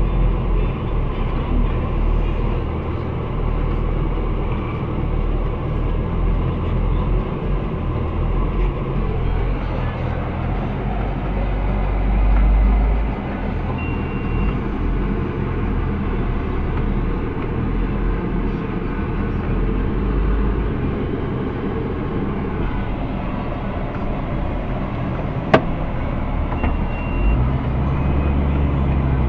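JCB Fastrac 3230 Xtra tractor's diesel engine running steadily, heard from inside the cab, with a single sharp click near the end.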